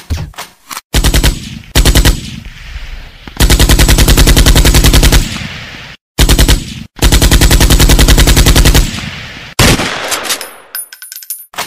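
Bursts of rapid, loud, sharp cracks in quick succession, like automatic gunfire. The runs last from a fraction of a second to about two seconds, with short pauses between.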